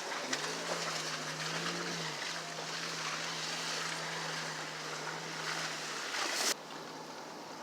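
Car tyres hissing through wet, melting slush over a low, steady engine hum; the hiss cuts off suddenly about six and a half seconds in.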